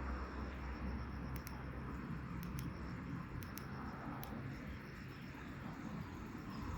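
Quiet, steady background rumble and hiss with a few faint, sharp ticks about a second apart.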